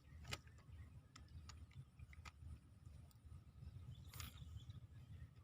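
Near silence: a faint outdoor background with a low rumble, a few light scattered clicks and a brief rustle about four seconds in.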